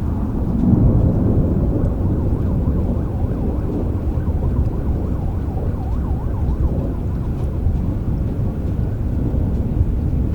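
Low, rolling thunder over steady rain, swelling about a second in and then holding. A faint wavering tone rises and falls in the middle.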